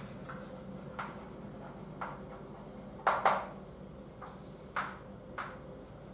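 Chalk writing on a blackboard: a series of short taps and scratches about a second apart, the loudest pair about three seconds in.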